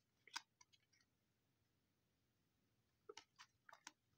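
Faint clicks of trading cards being slid and flicked through in the hands, a few about a third of a second in and a cluster near the end, with near silence between.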